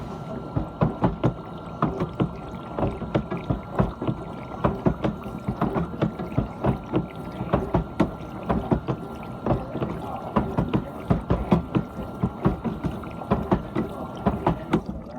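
Dishwasher running its wash cycle: water sprayed and sloshing irregularly inside the tub over a steady whine from the pump. It starts abruptly and cuts off abruptly near the end.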